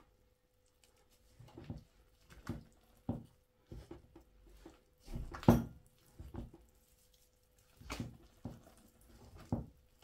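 Hands squeezing and rubbing flour, butter and yogurt together into a crumbly dough in a bowl: irregular soft squishing and patting, with one louder thump about five and a half seconds in.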